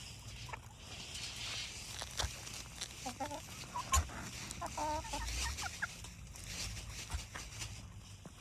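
Backyard chickens clucking in short calls while they feed, with a few sharp taps among them.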